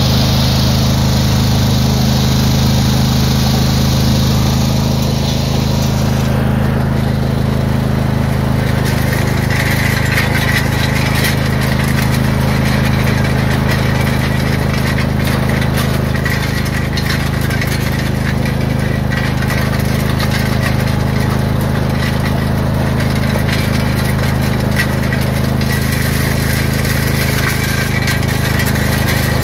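Craftsman lawn tractor engine running steadily under way. From about seven seconds in, gravel crunches and clinks continuously as the towed land plane drags through the driveway gravel.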